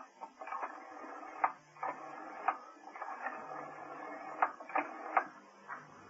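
Telephone being dialled in a public phone box: a rotary dial turned and let run back, giving sharp mechanical clicks at uneven intervals over a faint whirring, with short low hums between.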